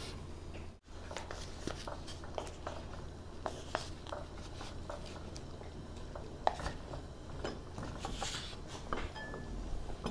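Metal ladle and chopsticks clinking and scraping in a hotpot and against bowls, scattered light taps over a steady low hum.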